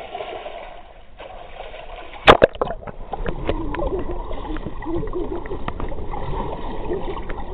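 A swimmer splashing in a pool, then a loud splash a little over two seconds in as the microphone plunges underwater. After that the sound is muffled and underwater, with bubbling and small clicks.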